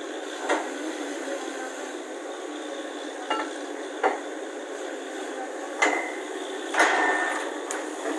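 Half a dozen sharp metal clanks and clinks at uneven intervals, a couple of them ringing briefly, over steady machinery noise at a borewell drilling site: metal being knocked and handled, such as drill rods, pipes or tools.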